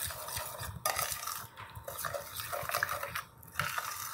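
A utensil stirring and scraping briskly in a pan with quick, irregular clinks, beating eggs into warm melted chocolate, butter and sugar.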